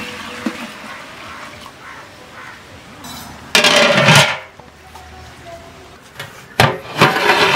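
Milk pouring into a large steel cooking pot, then loud metallic clatters as a flat steel plate lid is set on the pot: one about three and a half seconds in, and a sharp click and another ringing clatter near the end.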